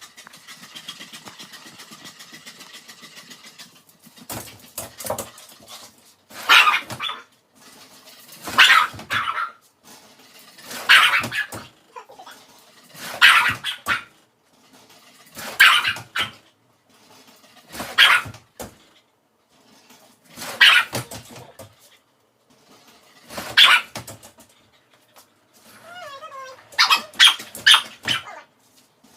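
A dog barking over and over, loud single barks about every two seconds, coming closer together near the end. They follow a few seconds of faint, fast, steady ticking.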